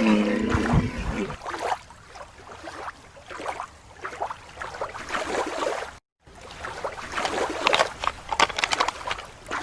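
Water splashing and sloshing as toy animals are moved in and out of it, with irregular small knocks and splashes.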